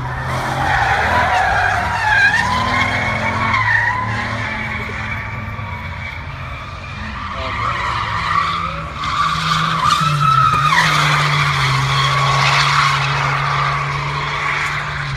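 Drift cars sliding with tyres squealing in long, wavering screeches, over the steady drone of engines held at high revs. The squeal swells twice, near the start and again about two-thirds of the way through.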